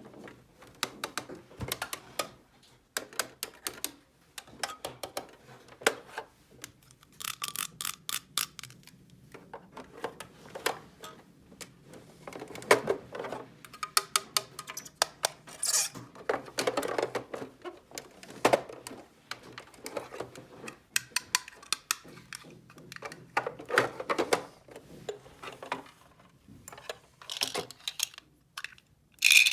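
Small hard plastic toy pieces clicking, clacking and rattling as they are handled and fitted together, in irregular runs of sharp taps.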